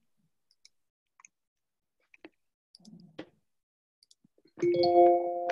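Faint scattered clicks, then about four and a half seconds in a chime sounds: several steady tones struck together as one chord, ringing on and fading out.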